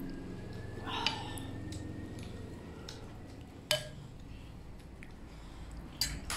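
Chopsticks clinking against a porcelain bowl, a few sharp separate clinks: about a second in, near the middle, and near the end.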